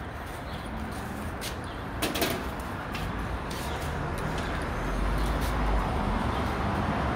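Steady traffic ambience with a few sharp clatters about two seconds in, and a low vehicle rumble growing louder in the last couple of seconds.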